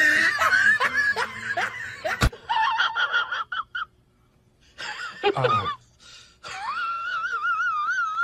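A domestic cat yowling in drawn-out, wavering cries, the longest near the end. This follows a short burst of noisy voices that is cut off by a click about two seconds in.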